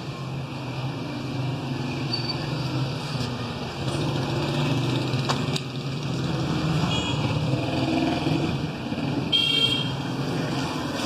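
A motor vehicle's engine running steadily with a low rumble that builds a little, and a short horn toot about three quarters of the way through.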